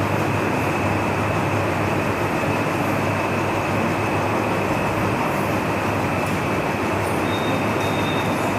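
Steady loud hiss with a low hum beneath it, with no voice. A faint high tone comes in near the end.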